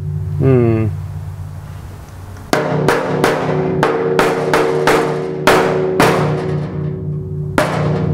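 A mallet knocking the underside of a newly welded steel floor pan on a VW Beetle chassis: about ten sharp knocks from about two and a half seconds in, each with a short metallic ring. The knocks are a test of whether the welds hold or separate.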